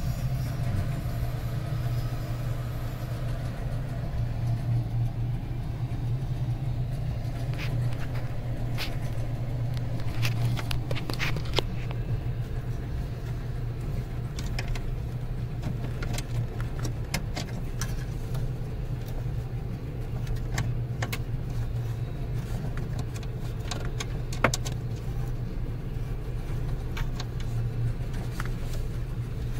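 A steady low mechanical hum, with scattered light clicks and knocks.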